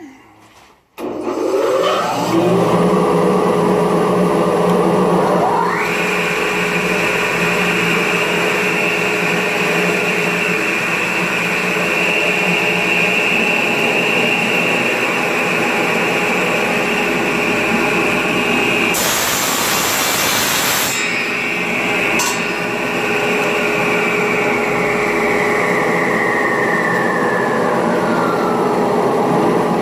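Electric power tool motor spinning up and running steadily, with a higher whine joining a few seconds in and sliding down near the end, and a brief loud hiss about two-thirds of the way through.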